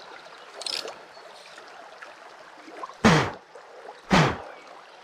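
Small creek running steadily as a soft background of water, with a brief hissing splash less than a second in. About three seconds and four seconds in come two short, loud sounds that fall in pitch.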